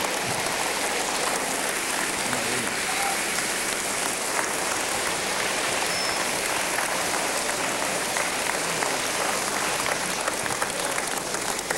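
Audience applauding steadily, a dense sound of many hands clapping.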